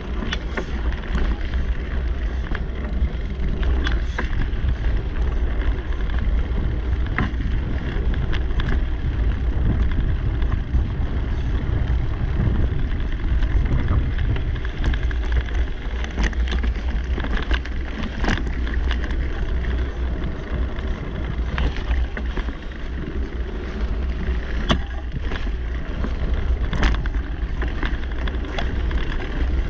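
Mountain bike rolling fast over a dirt singletrack: steady tyre and riding noise with a heavy low rumble of wind on the microphone, and scattered clicks and rattles from the bike over bumps.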